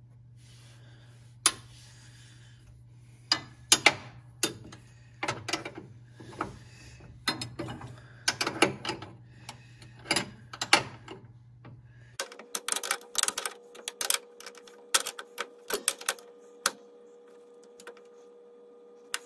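Steel wrenches clicking and clinking on hydraulic line fittings as the fittings are tightened, in irregular sharp metallic ticks. About twelve seconds in the background hum changes and the clicks come faster and closer together.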